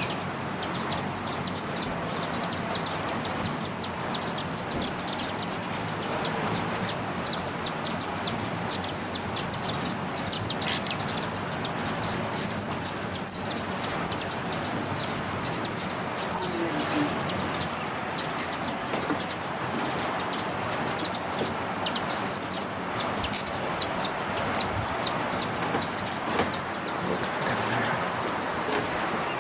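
A swarm of hummingbirds at feeders: a continuous, high-pitched buzzing trill from many wings at once, with scattered short ticks.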